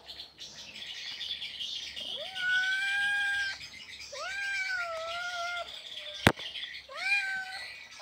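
Domestic calico cat meowing three times, drawn-out calls that rise at the start and then hold, the first two long and the last short: a female in heat calling to mate. A sharp click sounds a little over six seconds in, over a steady high background hiss.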